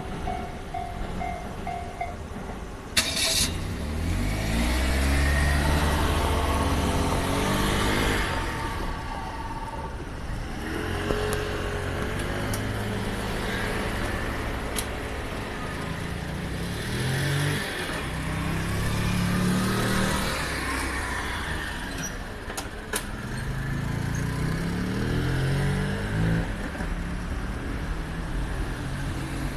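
Railway level-crossing warning bell ringing in quick repeated tones and stopping about two seconds in, followed by a sharp clack. Then a string of road vehicles drive off across the crossing one after another, each engine rising in pitch as it accelerates.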